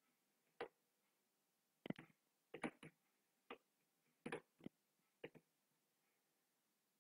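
Computer keyboard keys and mouse buttons clicking: about a dozen short, sharp clicks in small scattered groups.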